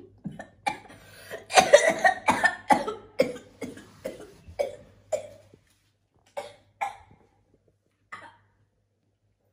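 A boy coughing hard in a fit of many quick, rough coughs, densest in the first few seconds. It thins out to three single coughs spaced apart toward the end.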